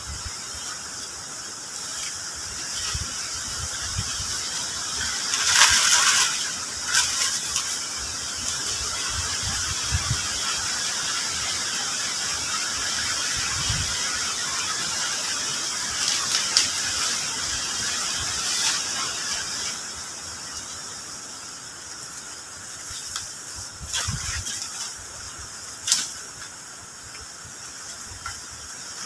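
Forest insects droning in a high, steady chorus that swells through the first two-thirds and then eases off, with a few brief rustles and snaps of dry leaves and branches being handled.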